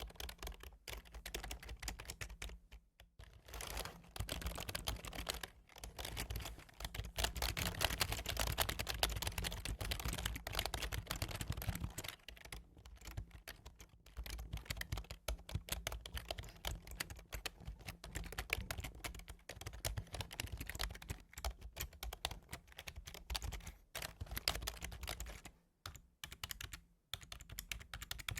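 Typing on a computer keyboard: a fast, continuous run of key clicks, broken by a few short pauses.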